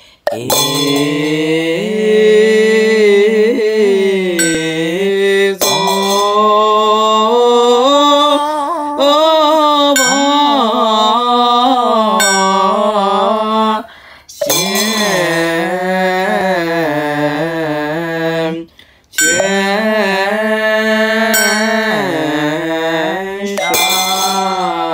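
Chinese Mahayana Buddhist liturgical chanting, sung in long, slow melodic phrases that glide between notes. There is a short break about halfway through and another a few seconds later.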